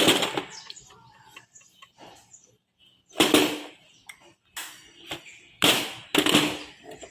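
A few short metallic clanks and knocks of hand tools against engine parts: one at the start, one about three seconds in, and two in quick succession near the end.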